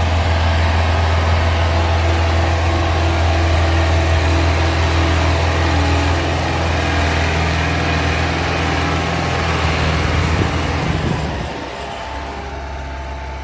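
Ford 6610 tractor's four-cylinder diesel engine running steadily as it pulls an implement through the field. Its low drone shifts in pitch about halfway through and gets quieter near the end.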